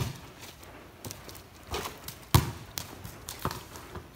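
Basketball bouncing on a wet concrete court, a few separate thuds with the loudest a little past halfway, mixed with the slap of running footsteps on the wet surface.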